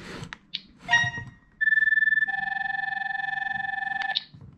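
Tape King TK101 talking tape measure's spirit-level mode sounding its electronic tilt-indicator tones. A few clicks as it is set down are followed by a brief chirp about a second in. A steady high beep starts at about a second and a half, a lower tone joins it partway, and both cut off shortly before the end.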